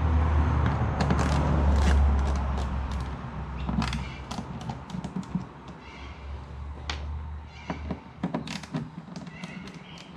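A low rumble of passing traffic fades over the first few seconds. Light clicks and taps follow as the transducer cable and rubber grommet are handled against the plastic kayak deck, with a few short high animal calls near the middle and the end.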